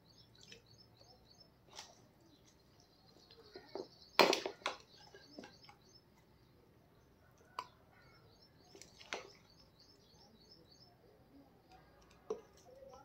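A metal spoon clinks and scrapes against a ceramic bowl and clay pot as marinated chicken is spooned into the pot, with the loudest clink about four seconds in and a few more spaced through. Small birds chirp in quick runs of high notes behind it.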